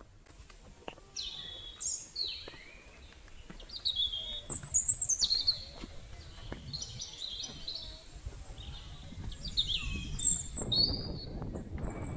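Wild birds calling and singing: a series of short, high whistled notes, many sliding down in pitch. A low rumble rises under them near the end.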